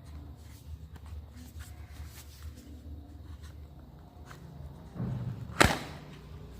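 Speaker packaging being handled during unboxing: faint rustling and light taps, then one sharp slap about five and a half seconds in.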